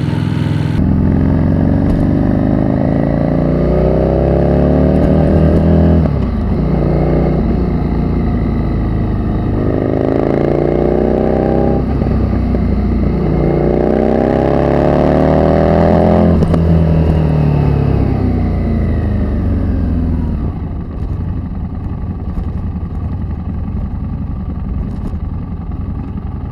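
Street rod's engine accelerating hard, its pitch climbing in three pulls with short breaks between them, then dropping in pitch as it eases off and running quieter near the end.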